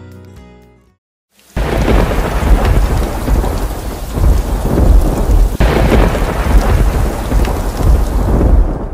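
Thunderstorm sound effect: heavy rain with rolling thunder, starting abruptly after a brief silence, with a fresh crack of thunder past the middle.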